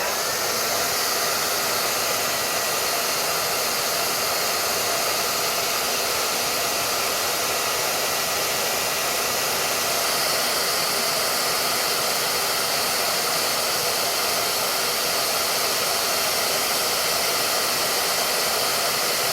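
A hand-held hot-air blower running steadily, a constant rushing of air with a faint high whine, heating a smoke-and-heat detector's heat sensor to set it into alarm.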